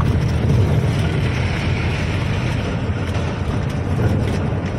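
Truck driving along the road, heard from inside the cab: a steady low engine drone with road and wind noise.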